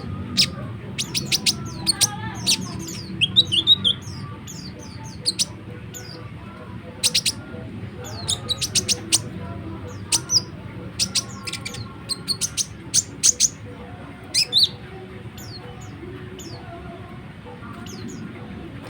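Konin songbird singing a rapid, chattering song of sharp high chirps in irregular clusters, the gacor nrecet song kept as a lure for other konin. The chirping thins out in the last few seconds.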